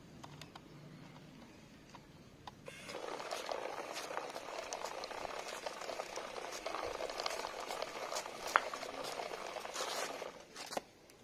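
Homemade RC toy tractor driving over rough concrete: its small electric motor and hard wheels make a gritty, crackling rattle full of small clicks. The rattle starts about three seconds in and stops shortly before the end.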